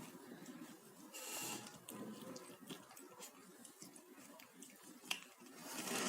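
Kitten chewing its food: faint wet chewing and smacking with a run of small clicks, and a brief rustle about a second in.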